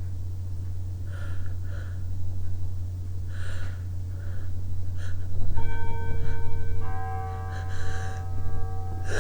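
A person with a runny nose draws short, sharp breaths and sniffs as a sneeze builds. From about halfway through, bells start ringing in the background as several held, overlapping tones, over a steady low hum.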